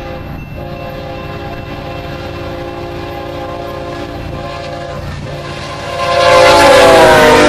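Freight locomotive horn sounding a chord over the rumble of a diesel-led double-stack container train. It gets much louder about six seconds in as the lead locomotive passes close, and its pitch drops as it goes by.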